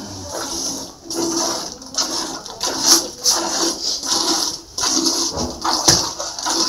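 Hand-milking a cow into a steel pail: the milk squirts into the pail in a steady rhythm, about two hissing squirts a second. There is a sharp knock near the end.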